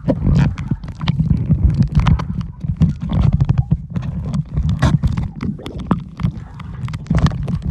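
Muffled underwater rumble and churning of pool water around a submerged phone's microphone while a swimmer moves, with scattered short clicks and knocks.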